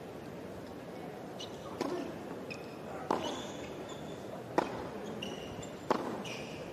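Tennis ball bounced on a hard court before a serve, then two racket strikes about four and a half and six seconds in, the first the loudest. Short high squeaks come between the strikes.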